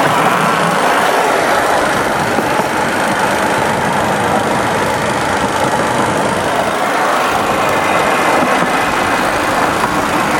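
Motorcycle engine driving a home-built rail trolley, running steadily as the trolley rolls along railway track.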